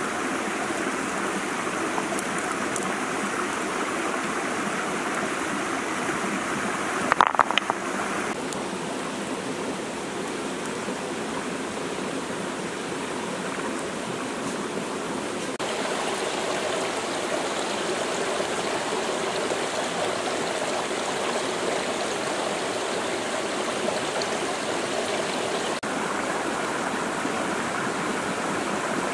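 Shallow stream water flowing over rocks, a steady rush. About seven seconds in, a brief clatter of a few sharp knocks.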